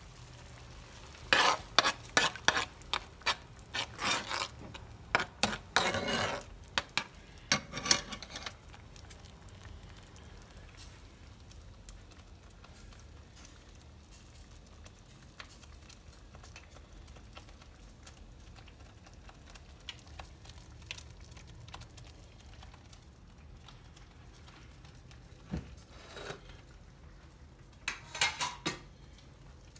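A metal utensil clinking, knocking and scraping against cookware in a quick run of sharp strikes for several seconds, then a faint low hum, with a few more clinks near the end.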